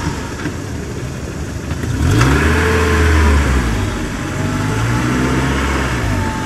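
A motor vehicle engine sound effect, running and revving up about two seconds in, easing off near four seconds, then building again.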